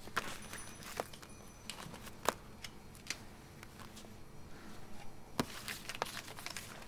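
Scattered small sharp clicks and light handling rustles over quiet room tone, irregularly spaced, about a dozen in all.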